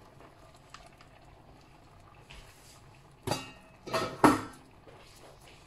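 Stainless steel pan lid clanking: three sharp metal knocks in the last two and a half seconds, the last the loudest, each with a short ring.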